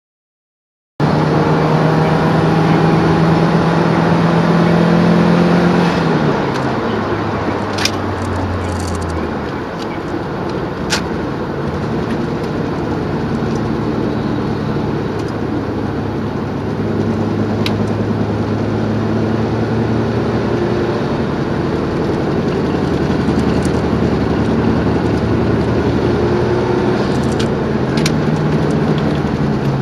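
Car engine under way on a race track: it holds a high pitch for a few seconds, drops as the car slows, then runs steadily lower. A few sharp knocks come through now and then, the kind of strange noise that turned out to come from hub nuts on the left front and rear wheels loosened until they turned by hand.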